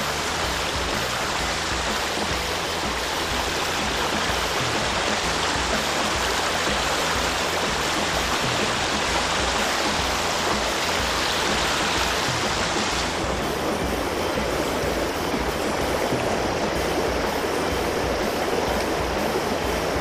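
Shallow river riffle rushing over cobbles: a steady, even rush of water whose higher hiss eases a little about two-thirds of the way through.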